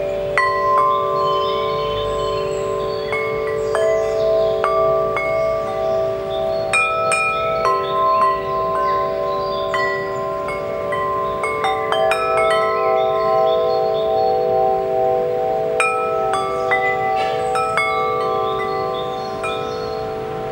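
Six-tube aluminium-alloy wind chime (44 mm tubes, 5 mm walls) being struck irregularly by its central striker, with fresh strikes every second or so. The long ringing tones overlap into a sustained chord.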